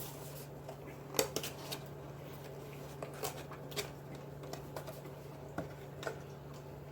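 Scattered light clicks and taps, about eight of them, the sharpest about a second in, over a steady low electrical hum.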